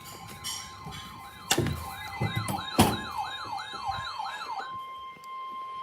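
Emergency alert tones over a broadcast: a steady single alert tone near 1 kHz, with a siren wail sweeping up and down about three times a second over it. The wail stops about three-quarters of the way through while the steady tone holds on, and two sharp clicks fall in the first half.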